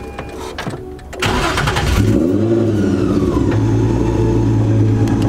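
Supercharged Nissan 350Z's 3.5-litre V6 cranking and firing up about a second in, the revs swinging briefly before it settles into a steady idle, heard from the driver's seat.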